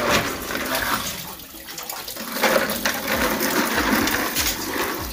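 Water poured from a plastic basin splashing over cooked maize kernels (nixtamal) in a metal bowl while hands rub the kernels, washing off the lime and hulls. The splashing dips briefly and picks up again about halfway through.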